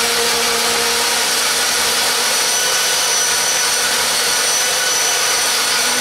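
Ladyship blender running steadily under load, its motor blending almonds and water into almond milk that is draining out through the jar's front tap.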